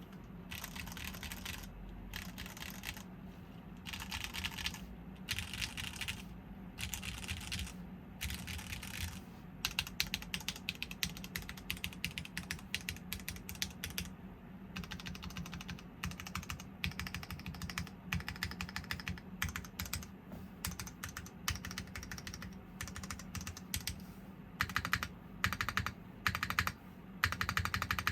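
Typing on a custom mechanical keyboard, a TGR Jane V3 with dry Cherry MX2A Black linear switches in a top-mounted aluminum plate, GMK keycaps and no foam dampening. Runs of rapid keystrokes come in bursts with short pauses between them, and the quickest streaks are in the middle and near the end.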